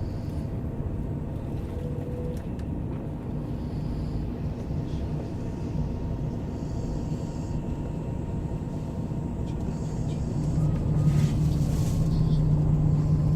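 A fellow passenger snoring over the steady low rumble of a moving vehicle, heard from inside the cabin. The vehicle's engine note grows louder about ten seconds in.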